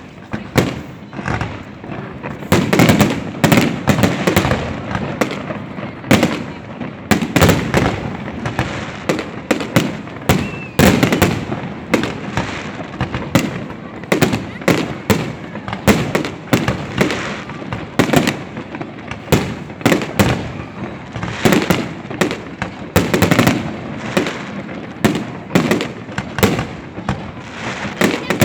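Fireworks exploding in a dense, irregular barrage of bangs and crackles, several a second, with no let-up.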